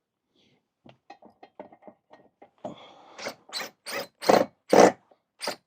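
Patio umbrella being taken down: a quick run of light clicks, then loud scraping strokes about two a second that grow louder toward the end.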